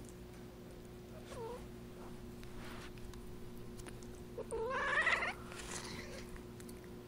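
Domestic cat in heat yowling, the calling of a female in estrus. There is a short low call about a second and a half in, then a louder, longer call that rises in pitch around five seconds in.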